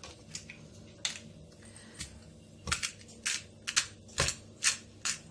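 Hand-twisted spice grinder (mill) crushing chicken seasoning, a few single clicks at first, then from a little under three seconds in a run of short crackling grinding strokes, about three a second.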